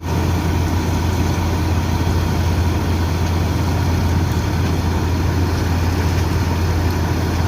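Heavy diesel engine of farm harvesting machinery running steadily with a deep, even hum. It starts abruptly at full level.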